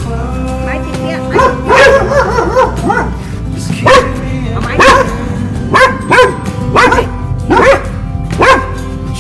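A dog barking repeatedly: a quick run of barks about a second and a half in, then single barks about once a second, over background music.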